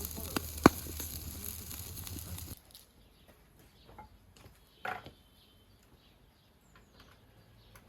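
Carp sizzling on a grill, with one sharp crackle about a second in. The sizzle cuts off after about two and a half seconds, leaving quiet background with faint ticks and one short sound a little past the middle.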